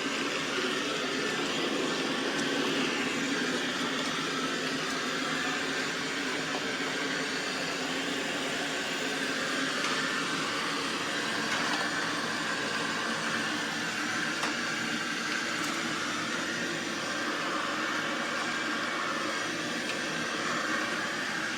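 AIRROBO T20+ robot vacuum running steadily as it cleans the floor, its motor and brushes making an even whir with a slowly wavering higher tone.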